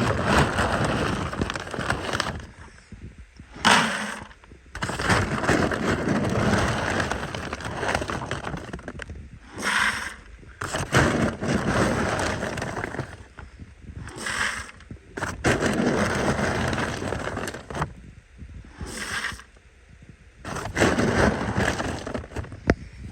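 Rustling and scraping from handling dry dog food, with a short sharp rattle about every five seconds.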